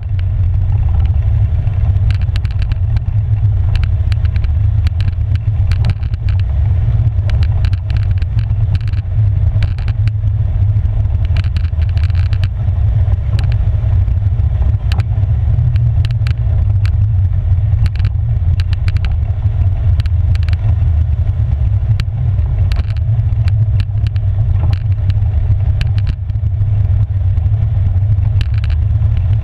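Polaris Sportsman 570 EPS ATV's single-cylinder engine running steadily at trail speed, a low rumble, with frequent short knocks and rattles as it rides over a gravel track.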